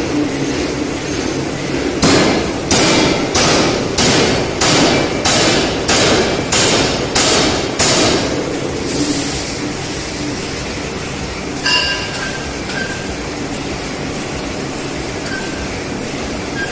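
Large open-die forging hammer striking a hot steel blank on its anvil: a run of about ten heavy blows, roughly one and a half a second, over the hammer's steady running noise. Later a single metallic clank rings out.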